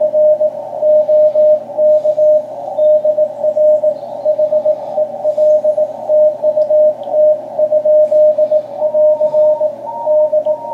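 Incoming Morse code (CW) on the 40 m amateur band, heard through an HF transceiver's speaker: a single keyed tone sounding out dots and dashes over narrow-filtered band hiss. Near the end a second, higher-pitched Morse signal joins in alongside it.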